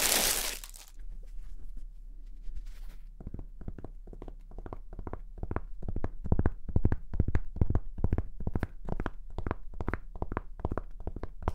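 Plastic bag crinkling for about a second as a baseball cap is pulled out of it, then from about three seconds in a long run of quick fingertip taps on the cap, several a second, for ASMR.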